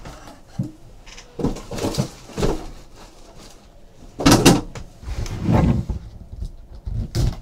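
Handling sounds: a wooden presentation box and a small card box knocked, scraped and set down on a tabletop, a string of separate clunks with the loudest about four seconds in.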